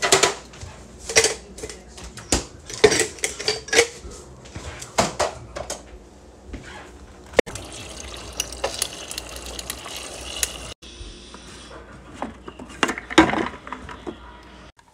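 Refrigerator door water dispenser running into a plastic tumbler for about three seconds, a steady hiss that stops abruptly. Before it, clinks and knocks of things being handled in the fridge; after it, a few knocks of the plastic tumbler being handled.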